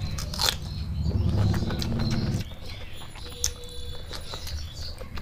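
Close-miked chewing of a mouthful of rice and fish curry, with wet mouth clicks. The chewing noise drops away about two and a half seconds in, leaving fainter scattered clicks.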